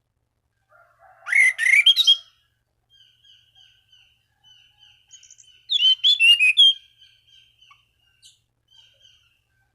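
Anis cendana (orange-banded thrush) singing: two loud, rich bursts of song, about a second in and again near the middle, linked by a soft run of short repeated notes. This is a lure song, to call rival thrushes into song.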